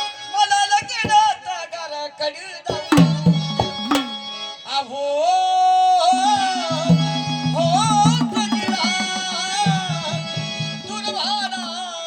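Marathi folk song music: a hand drum beats a quick pattern under a melody of gliding, wavering notes.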